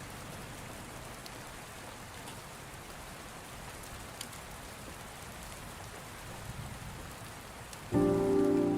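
Steady rain falling, an even hiss with a few faint drops ticking. Near the end, soft music with held, sustained chords comes in, much louder than the rain.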